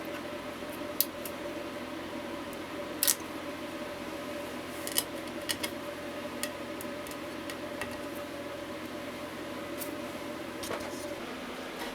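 Scattered small clicks and taps, as of tools and small guitar parts being handled during disassembly, over a steady hum with a faint held tone.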